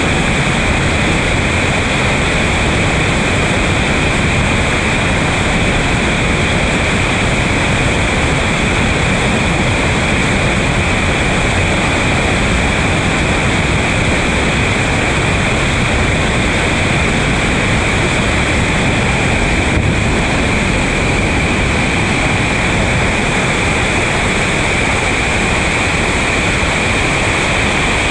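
Whitewater rapids rushing over a boulder drop: a loud, steady rush of water that does not let up.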